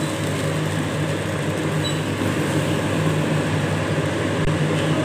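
A steady low hum with an even hiss runs throughout. Under it, a wooden spatula stirs thin ragi milk in a nonstick pan on low flame.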